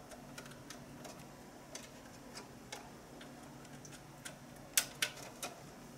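Small clicks and taps of a micro-USB power plug and the clear acrylic case as the plug is worked into a Raspberry Pi 3's power port, with three sharper clicks near the end.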